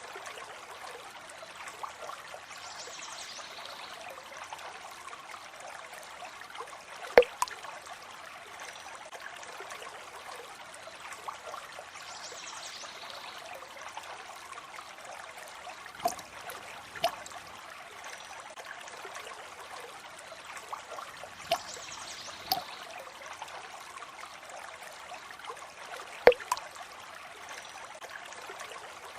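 Water trickling steadily, with separate drops landing now and then, several of them in close pairs.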